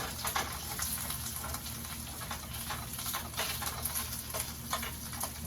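Bacon frying in a pan, a steady sizzle with frequent small crackling pops of spattering fat.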